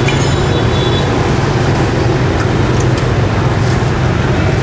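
Steady background din of street traffic with a low rumble, and a few faint clicks.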